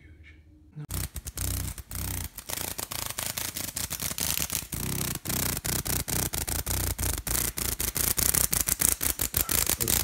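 Adult female northern dusk-singing cicada (Megatibicen auletes) beating her wings while pinched between finger and thumb: a rapid, crackling buzz that starts about a second in and grows louder, the struggling of a held cicada rather than a song.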